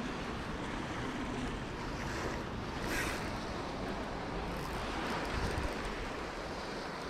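Small waves washing up a sandy beach, a steady surf rush with wind buffeting the microphone, and a brief louder rush about three seconds in.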